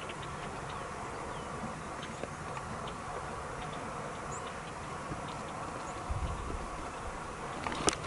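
Steady outdoor meadow ambience with faint insect buzzing and scattered light ticks; no elk call is heard. A short low rumble comes about six seconds in, and a sharp click near the end.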